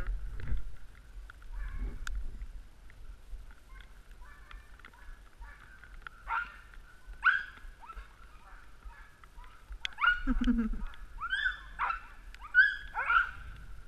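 Sled dogs yipping and whining while running in harness: short rising and falling high calls, a few at first, then coming more often from about ten seconds in, with one lower call among them.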